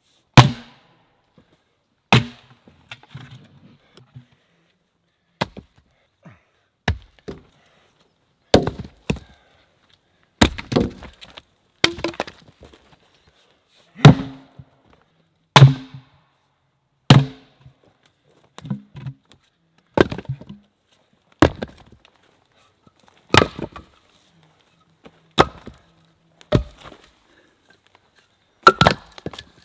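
A splitting axe chopping firewood rounds on a chopping block, with a sharp crack of the blade into the wood about every one and a half to two seconds. Split pieces knock and clatter between the strokes, and near the end split wood clatters as it is tossed onto the pile.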